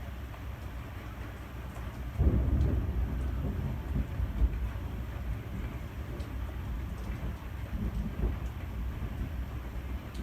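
SMC A-52 ornate ceiling fan running at medium speed with a low, uneven rumble that gets louder about two seconds in. The fan is wobbling badly because it hangs without a downrod.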